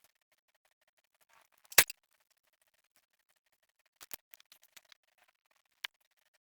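Scattered sharp clicks and light taps from hands working on car stereo wiring: one loud click about two seconds in, a cluster of small clicks around four to five seconds, and one more click near the end.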